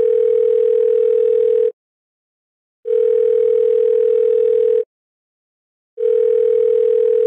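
Telephone line tone: a single steady low tone in pulses of about two seconds with roughly one-second gaps, three times.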